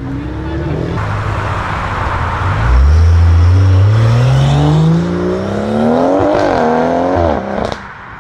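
A BMW M car's engine and exhaust accelerating hard. The note gets loud about a third of the way in, rises steadily in pitch for about four seconds, then falls away and cuts off shortly before the end.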